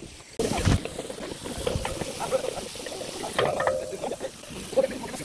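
A cooking pot over a wood fire, hissing and crackling with many small pops. It starts abruptly about half a second in.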